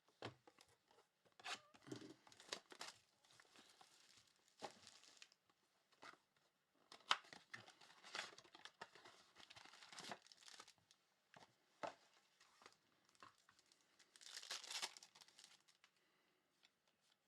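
Trading-card pack wrappers being torn open and crinkled, with scattered clicks of cards being handled; faint throughout.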